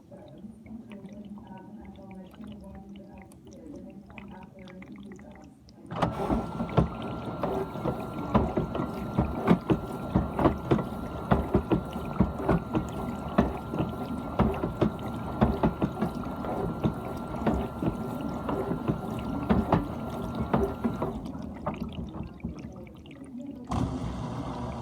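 GE dishwasher running its wash cycle: about six seconds in the pump cuts in suddenly, and water sprays and splashes inside the tub under a steady motor whine. It stops about fifteen seconds later, and a different steady hum starts just before the end.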